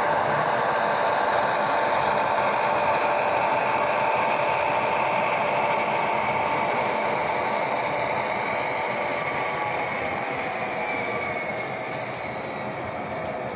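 Model freight train running past on its track, a steady running noise with whining tones that fade and drop in pitch over the last few seconds as the locomotives pull away and the cars roll by.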